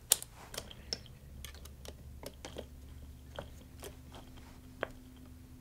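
Light, irregular metal clicks and taps of small parts being handled by hand: screws and a connector plate being fitted to perforated aluminium channel.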